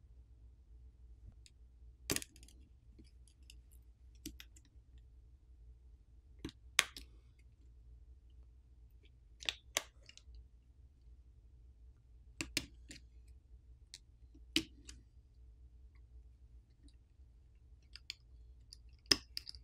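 Scattered sharp clicks and taps of a plastic pry pick and small parts against the open Google Pixel 7 Pro's internals, about a dozen, several in quick pairs, over a faint low hum.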